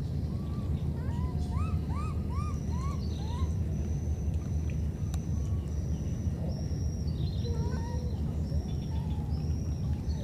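Baby monkey crying in a quick series of short squeaky calls that rise and fall in pitch, about two a second, then fainter and sparser later. Underneath runs a steady low rumble, with a thin high whine coming and going.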